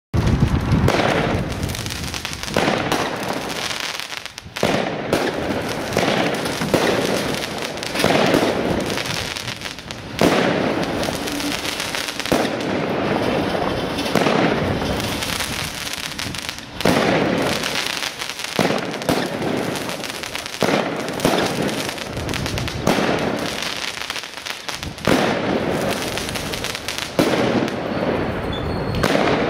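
Timewarp 36-shot big-bore firework cake firing shot after shot, a new loud shot about every two seconds, each followed by dense crackling from the crackling tails and crackle stars.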